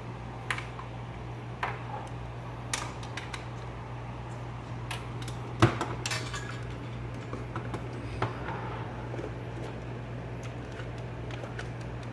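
Scattered light metallic clinks and clicks of parts and tools being handled on an amplifier chassis, the loudest a little over halfway through, over a steady low hum.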